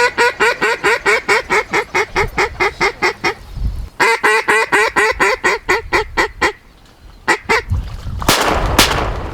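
Duck call blown in fast runs of hen-mallard quacks, about five a second, in two long strings and a few short notes after. Near the end a loud noisy burst with a sharp crack as the shooting starts.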